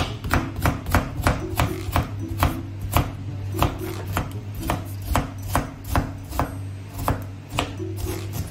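Kitchen knife chopping a carrot on a cutting board: a run of sharp, irregular knocks, about two to three a second, as the carrot is cut into strips and then diced.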